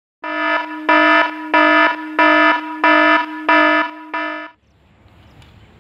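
Electronic warning alarm sound effect: a steady-pitched electronic tone pulsing about seven times, roughly one and a half pulses a second, cutting off about four and a half seconds in.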